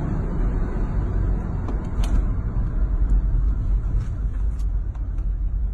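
Road and engine noise inside a moving Toyota's cabin: a steady low rumble, with a few faint clicks.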